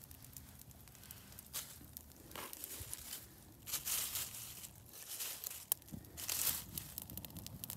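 Irregular bursts of crunching and crackling: dry leaves and twigs being handled and pushed into a struggling campfire.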